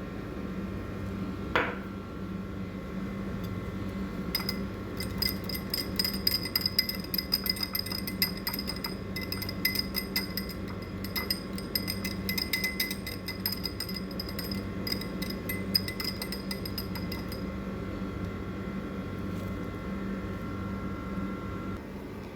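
A spoon clinking rapidly against a bowl while mixing mayonnaise and buffalo sauce into a sauce, starting about four seconds in and stopping a few seconds after the middle.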